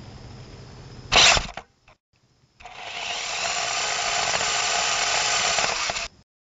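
Jumping Sumo minidrone's small electric motor whirring steadily for about three and a half seconds, after a sharp loud knock about a second in and a short silent gap.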